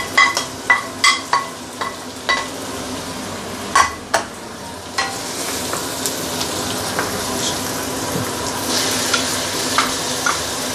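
A wooden spatula knocks chopped ginger, galangal, shallots and garlic off a plate into a stainless steel wok: a string of sharp ringing taps for the first four seconds or so. Then the aromatics fry in hot oil as they are stirred, a steady sizzle with a few clicks of the spatula on the wok.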